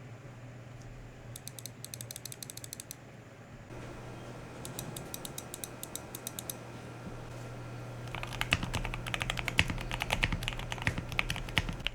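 Typing on a mechanical keyboard fitted with linear switches: rapid key clicks in two short light runs, then faster, louder typing from about eight seconds in.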